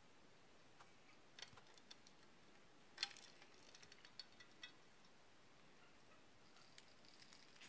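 Near silence broken by a few faint clicks and light knocks, the loudest about three seconds in: a wooden dowel knocking against metal cups as it is dipped in melted beeswax and then in cold water to build up a wax pot.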